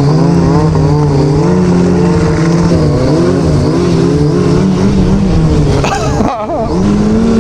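Yamaha RX-1 snowmobile's four-stroke engine running under throttle on the trail, its pitch wavering up and down with the throttle. About six seconds in it drops off briefly, then picks back up at a slightly higher pitch.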